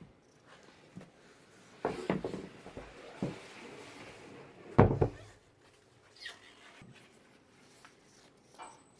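Scattered knocks and thumps of wooden sauna panels being handled and set in place, the loudest thump just before five seconds in.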